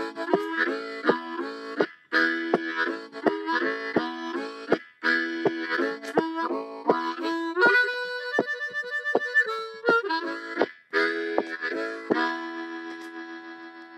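Blues harp (diatonic harmonica) playing a rhythmic blues riff of short chordal blasts, with a longer held chord partway through. It ends on a held chord that fades away.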